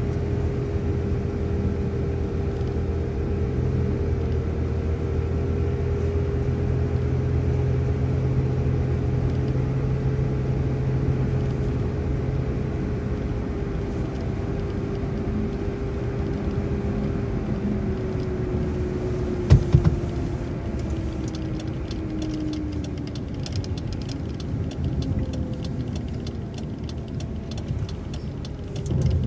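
Transit bus running on the road: a steady low drone with a drivetrain whine that slowly drops in pitch as the bus slows. A single sharp knock comes about two-thirds through, followed by a rapid clatter of small clicks near the end.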